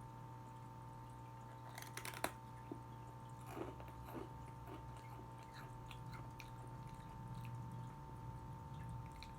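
A person biting into and chewing a sugar-topped rice cracker: a few sharp crunches about two seconds in, then fainter crunching and chewing.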